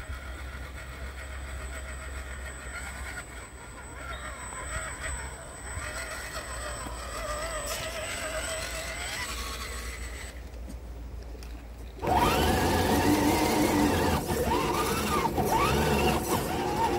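Electric motor and gear drive of RC crawler trucks whining, the pitch rising and falling with the throttle. About twelve seconds in it turns suddenly louder and closer as the crawler carrying the camera drives off.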